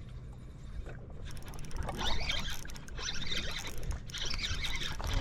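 Spinning fishing reel being cranked to retrieve a lure, a fast fine clicking with a hiss that starts about a second in and comes in surges, over a low steady rumble of wind and water around the boat.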